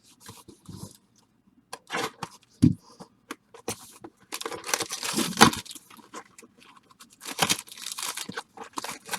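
Baseball card pack wrappers being torn open and crinkled by hand, with irregular bursts of tearing and rustling that are loudest around the middle.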